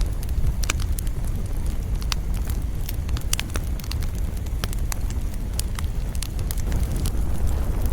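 Campfire crackling: irregular sharp pops and snaps, a few each second, over a steady low rumble.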